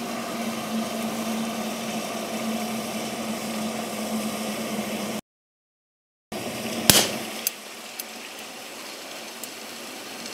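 Liquid nitrogen boiling around a hockey puck in a glass: a steady hissing, bubbling sound with a low hum. After a cut, an 83.5-pound drop weight strikes the frozen puck once with a sharp loud bang, followed by a few small ticks of scattering debris.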